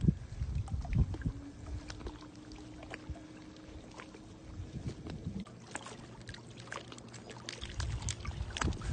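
Wind buffeting the microphone over small waves on open lake water, with scattered light clicks and a faint steady hum for a few seconds in the first half.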